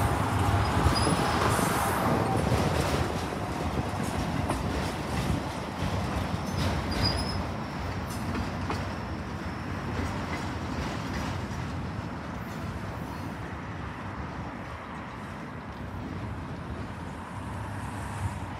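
Freight train of autorack cars rolling past on the rails and away, its wheel and rail noise fading steadily as the last car recedes.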